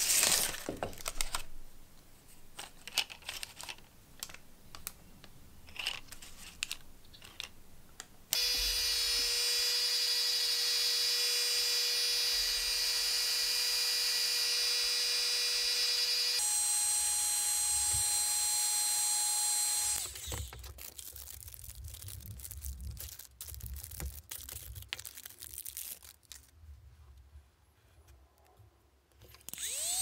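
Baking paper and wooden mould blocks handled with light clicks and rustles. Then an electric heat gun's blower runs with a steady high whine while melting plastic bottle caps; the whine jumps to a higher pitch and cuts off about two-thirds in. After more light handling, the heat gun starts again near the end with a rising whine.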